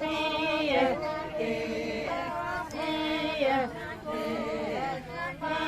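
Voices singing unaccompanied in short held phrases, each sliding down in pitch at its end.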